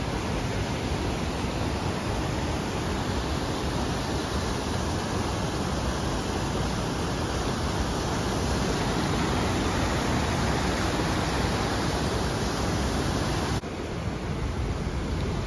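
Creek water rushing through a boulder-choked gorge, a steady rush. Near the end it drops abruptly to a slightly softer, duller rush.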